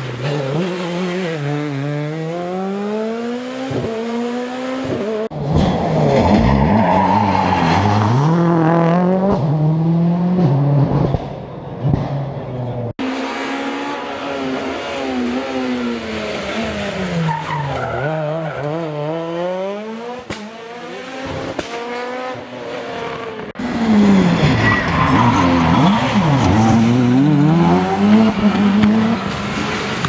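Rally cars on a tarmac stage passing one after another, their engines revving hard, the pitch dropping and climbing again and again as they brake and accelerate through hairpins, with some tyre squeal.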